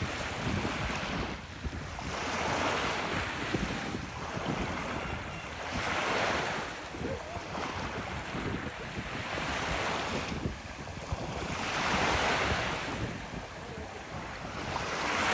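Ocean waves breaking and washing up a beach, each swell rising and falling about every three to four seconds. Wind buffets the microphone underneath.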